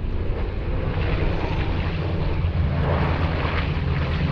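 WWII piston-engined propeller warbirds flying past, a steady engine drone that grows slightly louder about three seconds in.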